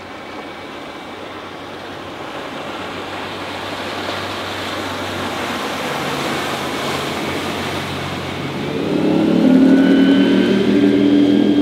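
Mariah SC21 cuddy boat's engine running at speed on a pass-by, with the rush of hull and spray, growing steadily louder. About nine seconds in the engine's deep drone comes through strongly as the boat passes closest and turns away.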